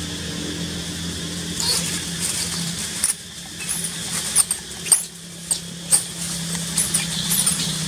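Monkeys giving short, sharp high-pitched squeaks, about six of them in the second half, while scrambling over dry leaf litter. A steady low hum runs underneath.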